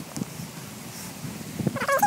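Footsteps on a dirt forest trail. Just before the end, a stuttering animal call of quick repeated notes starts.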